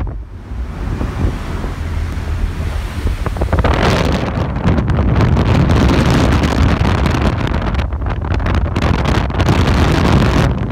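Strong wind buffeting the microphone, with the rush of rough sea breaking white along a ship's bow as it pushes through the waves. The gusting eases briefly at the start and picks up again about four seconds in.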